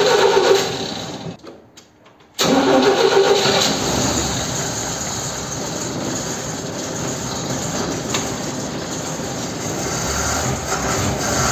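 A 292 inline-six engine being started with a hard start: it turns over and dies out about a second and a half in, then after a short pause it comes back and keeps running steadily. The hard start comes from a vacuum leak, with the brake booster vacuum line slipped off.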